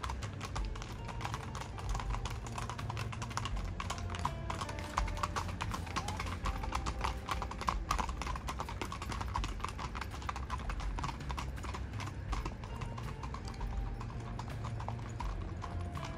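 Horses' hooves clip-clopping on a packed dirt track: quick, overlapping hoofbeats from more than one horse at a walk.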